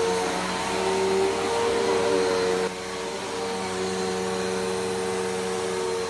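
Bissell PowerForce Helix Turbo upright vacuum cleaner running with a steady motor hum and rush of air as it is pushed over a fabric sheet. About halfway through it suddenly becomes somewhat quieter.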